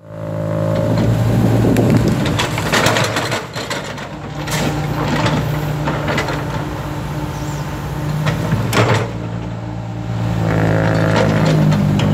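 Komatsu PC70 hydraulic excavator's diesel engine running under load while its bucket scrapes and crunches through large broken concrete slab pieces, with several sharp cracks and knocks. The engine note drops a few seconds in and picks up again near the end.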